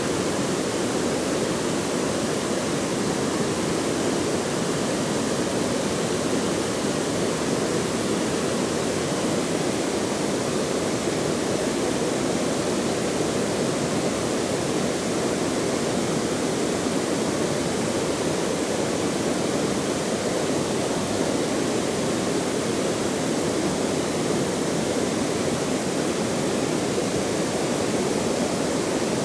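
Steady rushing of flowing water, an even, unchanging noise with no breaks.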